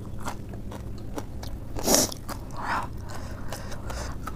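Close-up chewing of a mouthful of crushed dry Wai Wai instant noodles with lettuce: irregular crisp crunches, the loudest about halfway through.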